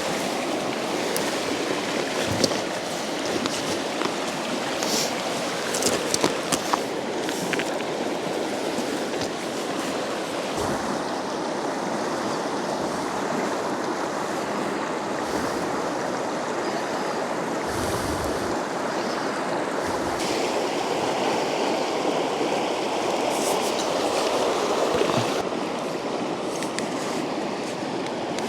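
Mountain river flowing steadily, a continuous rush of water, with a few short clicks or knocks about two and a half seconds in and again between five and seven seconds in.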